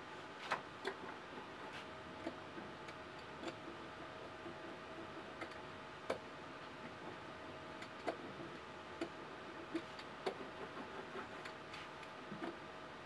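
Irregular light clicks and taps as a small hand-held tool is handled against a carved oak printing block. There are about fifteen sharp ticks with uneven gaps, over a faint steady hum.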